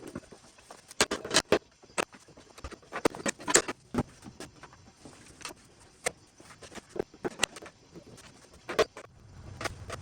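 Irregular knocks, taps and clatter of wooden cabinet parts being handled and worked on, with brief clusters of sharp clicks about a second in, around three and a half seconds and near the end.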